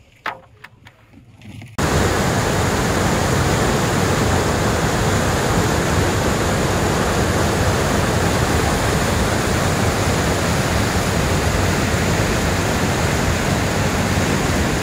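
Loud, steady roar of a large whitewater rapid, cutting in abruptly about two seconds in after a quiet stretch.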